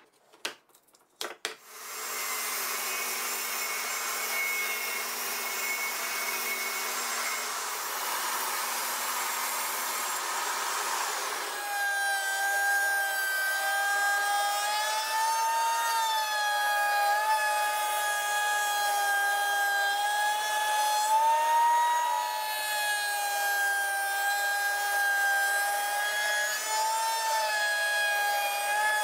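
Table-mounted router running, its bearing-guided bit cutting the curved edge of a plywood piece; the motor's whine dips and wavers as the wood is fed past. A few sharp clicks come just before it starts.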